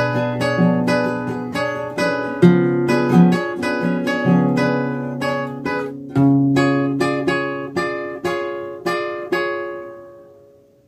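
Nylon-string flamenco guitar, capoed, playing a rumba flamenco chord melody: low bass notes under repeated plucked chords. The last chord rings out and fades away near the end.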